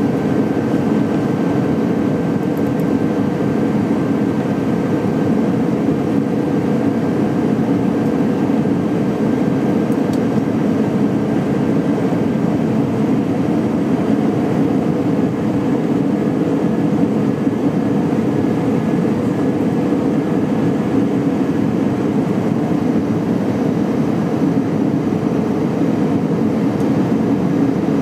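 Steady cabin noise of an Airbus A319-112 on approach, heard from a seat beside the wing: its CFM56 turbofan engines and the rushing airflow make a dense, even hum. A faint high whine sits over it and fades about halfway through.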